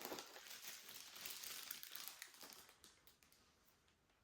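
Packaging rustling and crinkling as it is handled, soft, fading out about halfway through into near silence.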